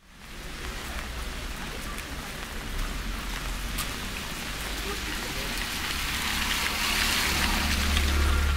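Steady rain falling, growing a little louder near the end, over a low rumble.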